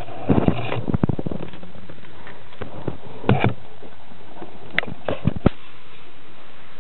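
Handling noise from a handheld camera moved close over a model plane: scattered short clicks and rustles over a steady hiss, in three clusters, about a second in, near the middle and past the middle.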